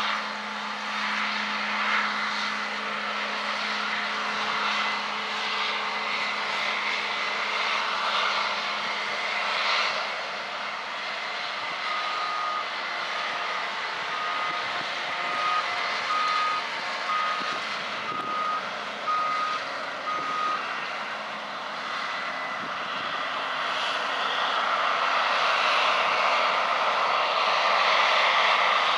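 Combine harvester running steadily under harvest load. Midway through, a machine warning beeper sounds about eight short beeps, roughly one a second.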